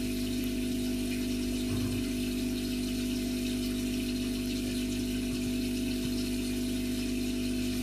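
A steady low machine-like hum with a constant hiss above it.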